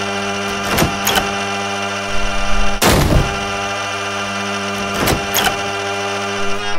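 A steady buzzing drone at one fixed low pitch, cut by sharp cracks: two about a second in, a louder burst about three seconds in, and two more around five seconds in. Soundtrack audio with the G-Major pitch-and-distortion effect.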